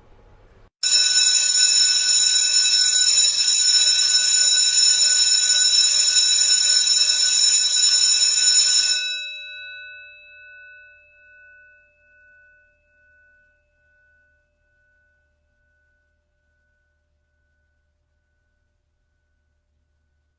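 Electric school bell ringing loud and continuously for about eight seconds, then cutting off and leaving the gong ringing down with a slow pulsing fade.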